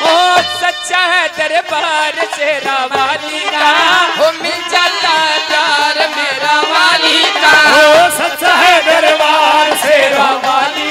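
A woman singing a Haryanvi devotional ragni into a microphone over loudspeakers, her melody wavering with ornaments, with instrumental accompaniment.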